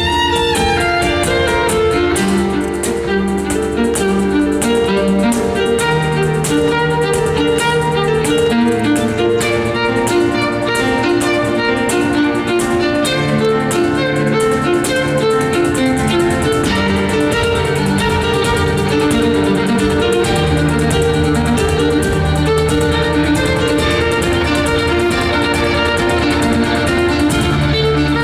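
Violin playing a melody over a loud backing track with plucked guitar and a steady beat.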